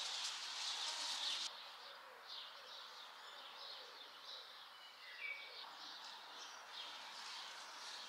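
Small birds chirping and twittering, with one brief clearer whistled note about five seconds in. A denser high hiss of chirping at the start cuts off abruptly about a second and a half in.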